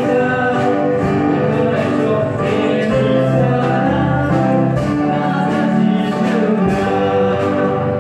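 Live song for a dance: singing voices over acoustic guitar and keyboard, with a steady beat.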